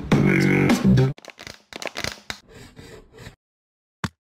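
A burst of music with a clear melody for about the first second, then quieter, irregular handling noises for about two seconds, and a single sharp click near the end.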